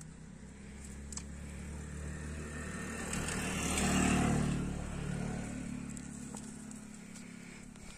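A motor vehicle driving past: its engine sound grows to a peak about four seconds in, then fades away.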